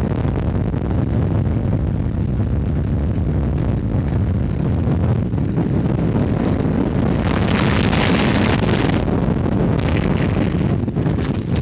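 Arrow steel roller coaster train running over its tubular steel track at speed: a steady low rumble of the wheels, with wind rushing over the microphone. The wind rush grows louder for a couple of seconds a little after halfway.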